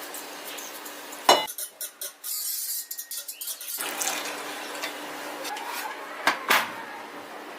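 Kitchen utensils and dishes clinking and knocking during food preparation. There is a sharp knock about a second and a half in, a stretch of noisy handling in the middle, and two more knocks near the end.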